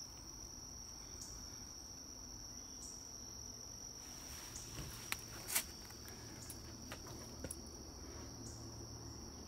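Steady, high-pitched chorus of insects such as crickets, unbroken throughout. A few short clicks and snaps sound between about five and eight seconds in.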